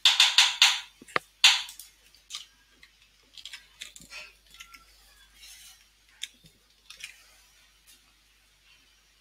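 Computer keyboard and mouse clicks while code is edited: a loud quick run of four or five clicks at the start, another sharp click about a second and a half in, then scattered quieter taps.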